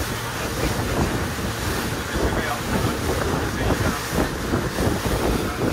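Wind buffeting the microphone on a moving boat, over the rush of water along the hull.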